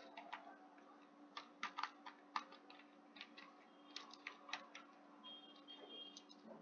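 Faint keystrokes on a computer keyboard, a string of irregular clicks, over a steady low hum.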